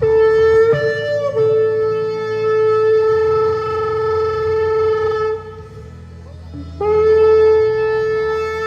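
Shofar blown in two long blasts: the first steps briefly to a higher note about a second in, then holds a steady tone for about four seconds; after a short break the second blast starts low, jumps up and holds. A low steady drone runs underneath.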